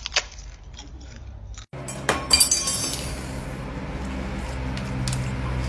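Crisp crunching of a sheet of roasted seaweed being bitten. About two seconds in comes a burst of sharp clinking and clattering of hard objects, then a steady low hum.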